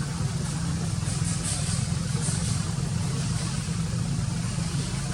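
A motor running steadily with a low, even hum, with a few faint high-pitched chirps over it about a second to two seconds in.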